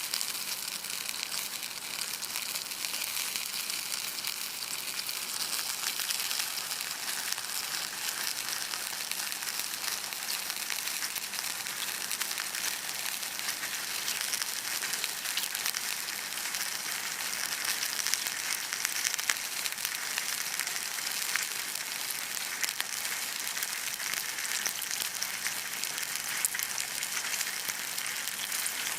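Sirloin steak sizzling over campfire embers: a steady frying hiss dotted with fine crackles.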